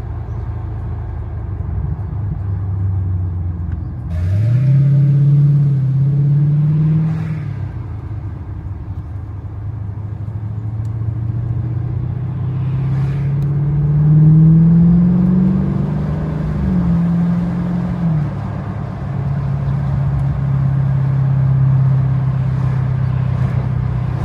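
Dodge Challenger Scat Pack's 392 V8 accelerating through the gears while cruising, heard from inside the cabin with the windows down. The engine note climbs about four seconds in and again from about twelve to sixteen seconds in, each pull dropping back sharply at a shift, between stretches of steady cruising. Wind noise from the open windows runs under it.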